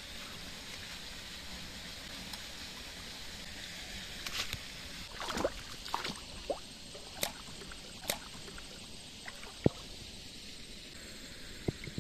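Shallow stream water running steadily, with a few light splashes and knocks between about four and ten seconds in as hands work in the water.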